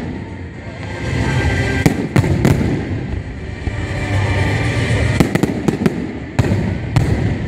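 Display fireworks in a closing barrage: many aerial shells bursting in quick succession. Sharp bangs come in a cluster about two seconds in and again from about five to seven seconds in, over continuous noise of further bursts.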